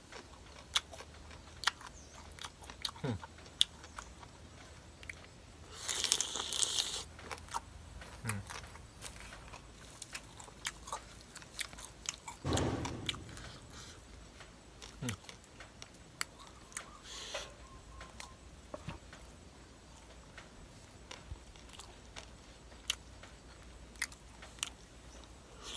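Close-up chewing and crunching of mouthfuls of spicy mixed seafood papaya salad, with scattered sharp mouth clicks. A short, louder hiss comes about six seconds in.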